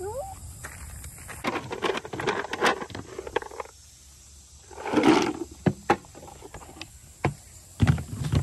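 Footsteps crunching and rustling through dry leaf litter, with one short, loud, rough noise about five seconds in and a few sharp knocks near the end.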